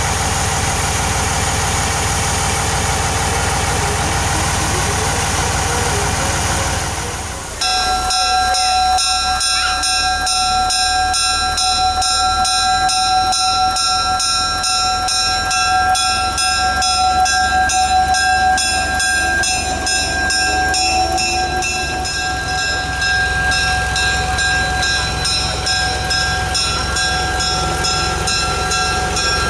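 Small diesel switcher locomotive idling with a low steady engine rumble. About seven seconds in, the sound changes to the locomotive's bell ringing steadily over the idling engine.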